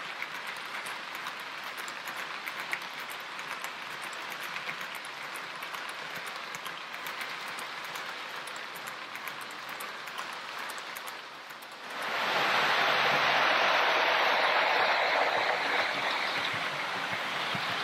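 Model-railway intermodal freight trains running on metal track: a steady rolling hiss with a fast patter of small clicks from the wheels over rail joints and points. About twelve seconds in it steps up to a much louder, fuller running noise as a model electric locomotive and its train pass close by.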